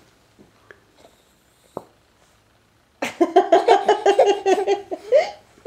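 Baby laughing: a quick run of short giggles starts about three seconds in, after a nearly quiet opening with a few faint clicks.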